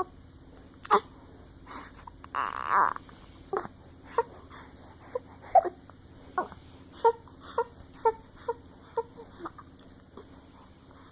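Baby hiccuping over and over, short sharp hiccups about two a second, after a brief strained cry a couple of seconds in. The hiccups keep cutting off his attempt to cry.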